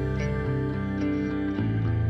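Instrumental background music; the low notes change about one and a half seconds in.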